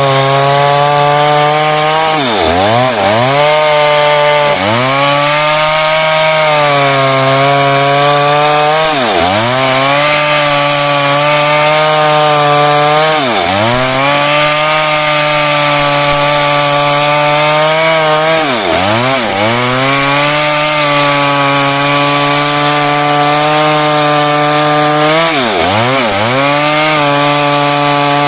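Chainsaw running at full speed while cutting through heartwood. Its engine pitch drops briefly and climbs back about six times as the chain is loaded in the cut.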